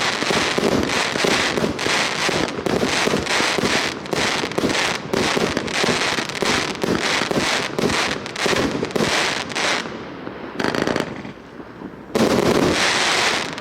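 A 26mm 100-shot firework cake firing rapidly, its shots and bursts overlapping into a dense run of pops and bangs. About ten seconds in the firing thins to a short burst, then a last loud volley comes near the end.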